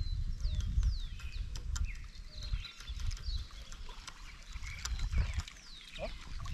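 Low rumble of wind on the microphone, with short descending bird chirps and scattered sharp clicks over it.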